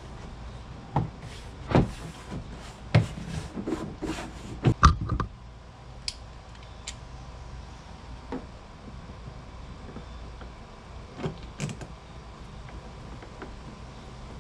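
Irregular knocks and clicks of hand work on a car's liftgate trim and lock parts: a quick run of about a dozen in the first five seconds, then a few scattered ones.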